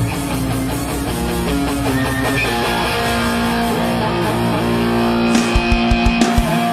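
Live worship band playing without singing: guitar over held keyboard and bass notes, with a quick run of drum hits near the end.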